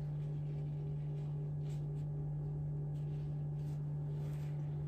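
A steady low electrical hum, with a few faint soft rustles as ground walnuts are spread along the baklava dough.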